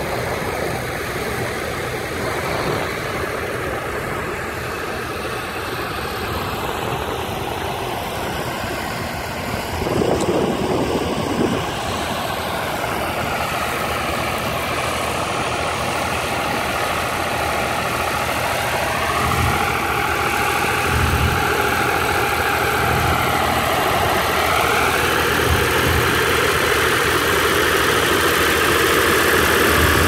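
Ford tractor engine running steadily as it pulls a plough, growing gradually louder as it comes closer, its note wavering up and down in the second half. A brief louder rush of sound comes about ten seconds in.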